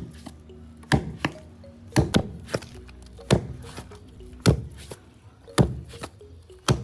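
Fufu being pounded: a heavy wooden pestle thudding into boiled cassava in a wooden mortar about once a second, with lighter knocks between some strokes.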